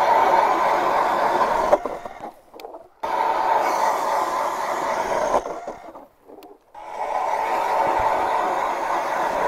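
Power ice auger drilling through lake ice in three spells of grinding, each two to three seconds, with the motor stopping briefly between them.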